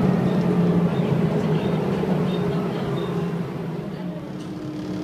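Volvo B7TL double-decker bus's six-cylinder diesel and drivetrain droning steadily from on board, easing off about three and a half seconds in. Faint short high squeaks come and go over the drone, and a steady hum sets in near the end.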